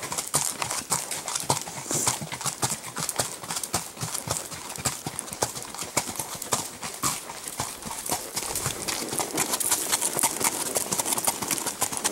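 Hoofbeats of a ridden horse clip-clopping along a packed trail, a run of repeated sharp strikes.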